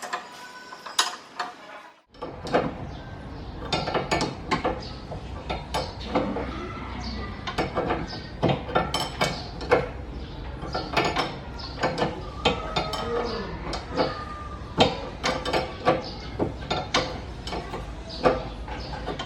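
Ratchet wrench clicking in irregular spurts, with metal tools clinking, as bolts are loosened or tightened. A steady low hum runs underneath from about two seconds in.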